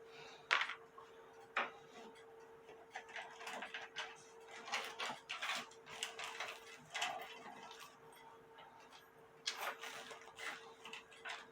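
Irregular clicks, taps and brief scrapes of hands and tools working on an antique cuckoo clock's case and movement, over a steady faint hum.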